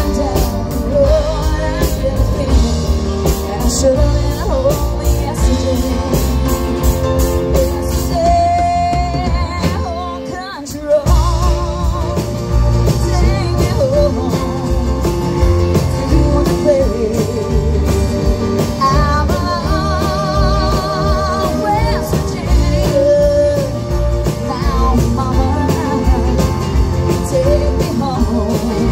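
Live country band playing with a lead vocal over acoustic and electric guitars, keyboard and drums. About eight seconds in, the drums and bass drop out for a couple of seconds, then the full band comes back in.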